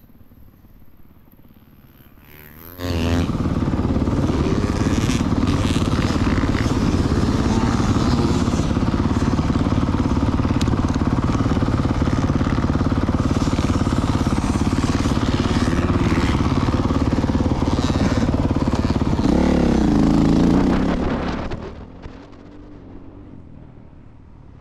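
Honda CRF450R dirt bike's single-cylinder four-stroke engine, quiet at first, then coming in loud and abruptly about three seconds in as the throttle opens. It runs hard and steady with wind noise, then bends in pitch and drops away a few seconds before the end as the throttle closes.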